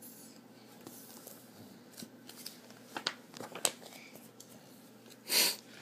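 Close handling noise on the recording device: a scattering of small clicks and rustles, with a louder short rustle about five seconds in.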